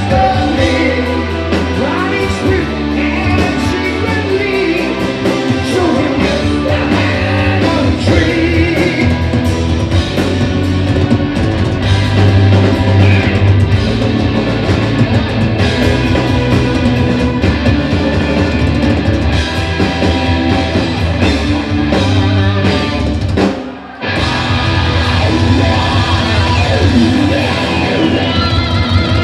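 A rock band playing live and loud: a male lead vocal over electric guitar and a drum kit. About 24 seconds in the band stops for an instant, then comes back in.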